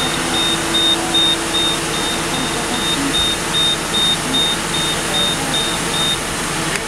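Fire engine's aerial ladder being operated: a rapid, regular high-pitched warning beep, about two and a half beeps a second, sounds over the steady running of the truck's engine. The beeping stops about six seconds in.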